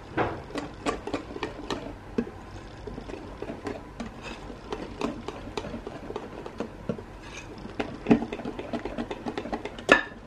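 Hand whisk stirring chocolate cake batter in a bowl as flour is mixed in, with irregular clicks and taps of the whisk against the bowl, a few a second. The sharpest click comes near the end.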